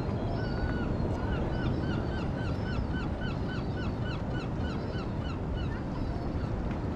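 A bird calling a rapid series of short, pitched, hooked notes, about four a second, which stops about five seconds in. Steady wind and surf noise runs underneath.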